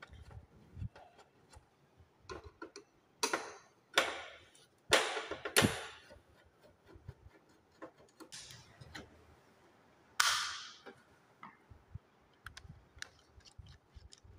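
Screwdriver working the screws of a metal DIN rail inside a distribution board: scattered light clicks and ticks, with a few louder sharp knocks and scrapes between about three and six seconds in and another about ten seconds in.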